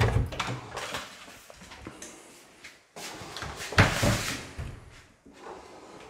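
A wooden interior door being handled and opened: a low knock at the start, and about four seconds in a sharp clack of the handle and latch, the loudest sound, with a short rushing noise after it.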